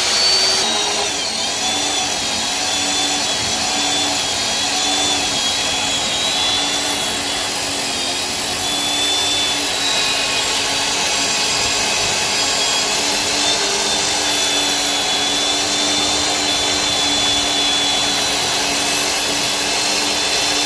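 Heavy-duty electric drill, chained and braced to a truck's steel chassis frame, running steadily as it drills into the frame: a high, steady motor whine over a low hum.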